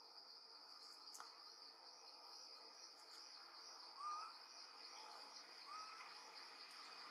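Faint, steady high-pitched insect drone, like crickets, with two short rising chirps about four and six seconds in.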